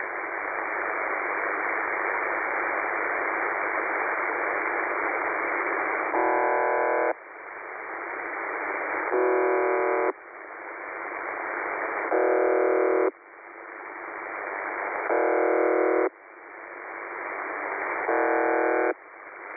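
UVB-76 'The Buzzer' shortwave station heard through a web SDR receiver. Radio static runs for about six seconds, then five buzzes of about a second each come about three seconds apart. The hiss dips after each buzz and swells back between them.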